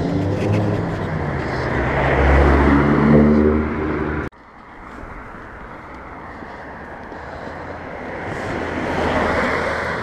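Cars passing on a street. The first passes with a steady engine note, growing louder, and cuts off abruptly about four seconds in. Then the road noise of another car builds up and passes near the end.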